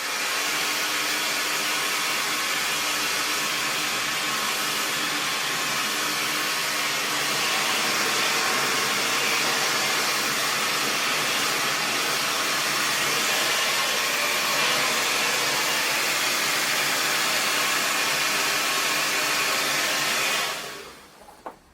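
Handheld hair dryer blowing steadily, its motor and airflow making an even rush that holds and then winds down near the end.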